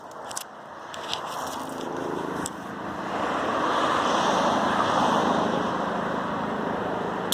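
A vehicle passing by: a rushing noise that swells for about four seconds and then slowly fades, with a few faint ticks and one sharp click near the end.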